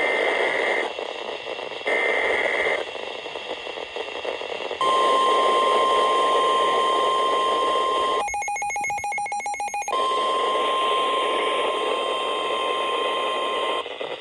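Emergency Alert System broadcast over NOAA Weather Radio: two short screeching bursts of SAME digital header data, then the long, steady high-pitched 1050 Hz weather-radio warning alarm tone, signalling a severe thunderstorm warning. The tone is broken for about two seconds in the middle by a rapidly pulsing cluster of electronic tones, then resumes, all over radio hiss.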